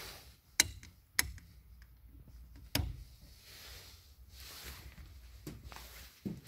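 Several sharp clicks, the first two about half a second apart, a third a little later, then softer knocks, over a faint low hum.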